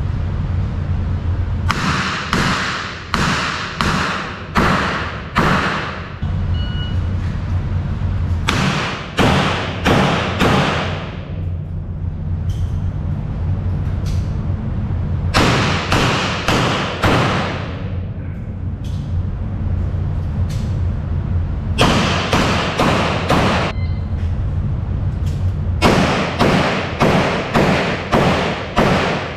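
Revolvers fired in several quick strings of shots separated by pauses, each shot ringing on in the echo of an indoor range, over a steady low hum.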